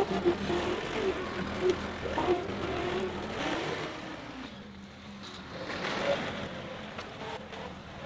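Diesel engine of a John Deere 325G compact track loader running as the machine drives away, growing fainter after the first few seconds over a steady low hum.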